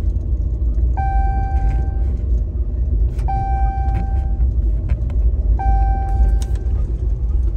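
Cabin of a 2018 Ram 2500 with the 6.7L turbo-diesel rolling slowly: a steady low road and engine rumble, with a dashboard warning chime sounding three times, about two seconds apart. The chime goes with the 'Service Electronic Braking System' warning, a fault traced to the ABS hydraulic control unit.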